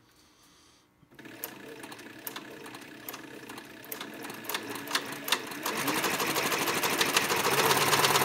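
SEWPRO 441-PRO cylinder-bed heavy-duty leather sewing machine on an 1100-watt servo motor, stitching through a leather strap. It starts about a second in with slow, separate stitch clicks, then speeds up steadily and grows louder toward the end.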